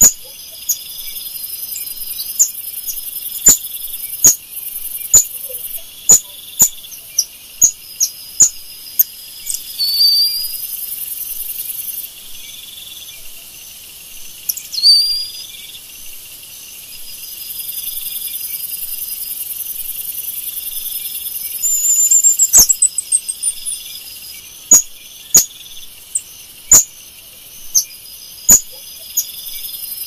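Golden lion tamarins calling: sharp, high chirps every second or two, a couple of short rising whistles, and a rising trill about two-thirds of the way in, over a steady, high insect drone.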